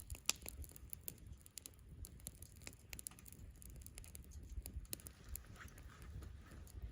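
Wood campfire crackling, with irregular sharp pops and snaps over a low, steady rumble.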